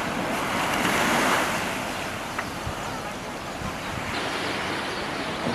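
Small waves washing onto a sandy beach, the surf swelling loudest about a second in, then easing.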